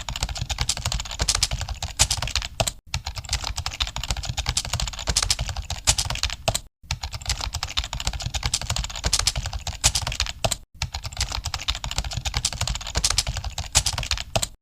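Fast, continuous typing on a computer keyboard, a dense run of key clicks broken by brief silent gaps about every four seconds.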